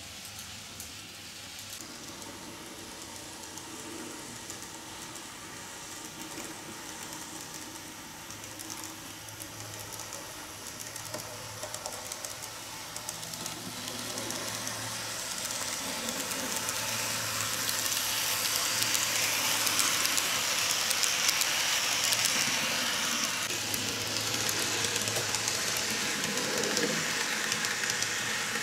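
Kato N gauge Type 8620 steam locomotive model and its Series 50 carriages running on the track: a steady whir and light rattle of the small motor and wheels on the rails. It grows louder from about halfway through as the train comes close and is loudest around two-thirds of the way in.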